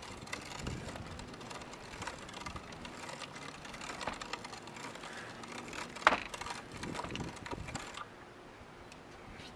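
A hand-cranked cast metal meat grinder is being turned, its auger forcing raw iguana meat through the plate with irregular creaking and clicking. There is one sharp knock about six seconds in, and the grinding grows quieter near the end.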